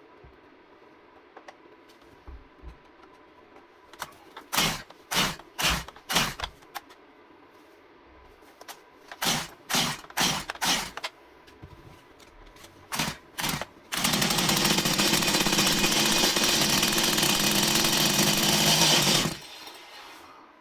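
Stihl MS 170 two-stroke chainsaw being pull-started: ten quick pulls of the recoil starter in three groups, then the engine catches and runs steadily for about five seconds before cutting off suddenly.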